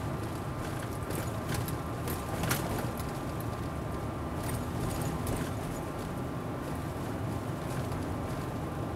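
Car driving slowly, heard from inside the cabin: a steady low rumble of engine and tyres, with a few scattered clicks, the sharpest about two and a half seconds in.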